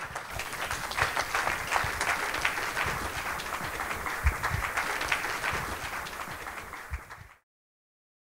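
Audience applauding: dense, steady clapping that cuts off abruptly near the end.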